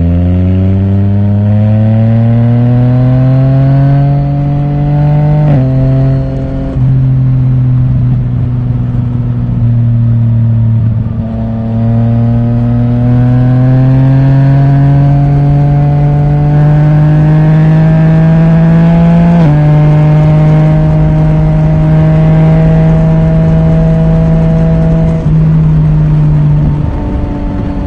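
Yamaha Tracer 900 GT's three-cylinder engine, breathing through an Akrapovic titanium full exhaust with the dB killer removed, pulling under throttle. The exhaust note climbs and drops sharply at an upshift about five seconds in. It climbs again and drops at another upshift about two-thirds of the way through, then runs steady at cruising revs.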